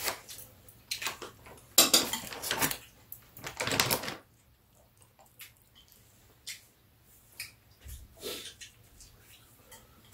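Metal chopsticks clinking and scraping against bowls on a metal serving tray, a busy run of clatter for the first few seconds, then only occasional light clicks.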